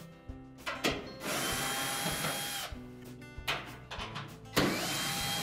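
Cordless drill-driver backing out quarter-inch hex-head screws from a dryer's sheet-metal panel: two runs of a steady motor whine, each about a second and a half, the second starting near the end. A few light clicks come before the first run, with quiet guitar music underneath.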